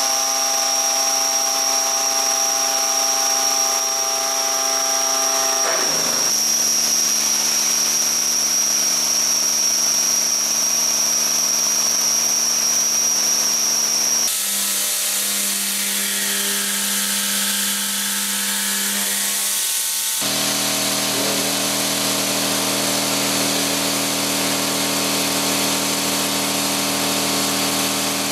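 Hwacheon VESTA-2000 vertical machining center milling carbon steel. The cutter runs with a steady high-pitched tone over a stack of lower hums. The tone pattern changes abruptly three times, about 6, 14 and 20 seconds in, as the footage cuts between different face-milling and end-milling passes.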